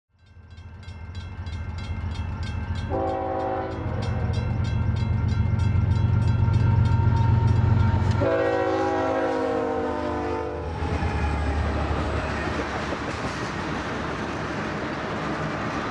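Union Pacific diesel freight locomotive approaching and passing. Its engine rumble builds, with a short blast on its multi-note horn about three seconds in and a longer blast at about eight seconds. Then comes the steady rolling rumble of tank cars going by. A high, regular ringing beat, about three strokes a second, runs through the first half.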